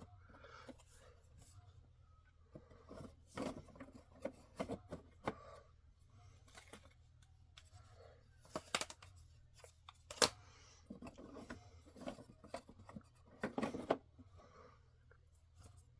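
Scattered light clicks, taps and rustles of a cartridge storage rack and its packaging being handled, with a few sharper knocks, the sharpest about nine and ten seconds in.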